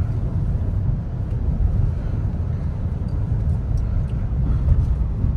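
Steady low rumble of a Kia Sonet's tyres and engine heard from inside the cabin while driving at highway speed.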